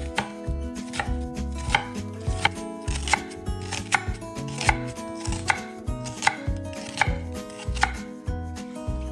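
Chef's knife slicing a halved white onion on an end-grain wooden cutting board: each cut is a crisp crunch through the onion ending in a knock of the blade on the board, with the cuts coming steadily about every three-quarters of a second.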